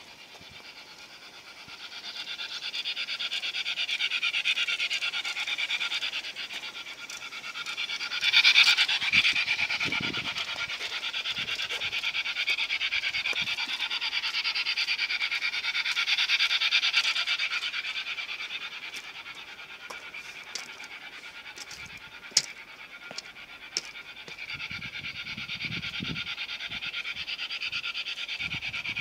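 LGB Stainz G-scale model locomotive running on garden track: a steady, rhythmic hissing whir that swells and fades as it comes near and moves away, loudest about eight seconds in, with a few sharp clicks later on.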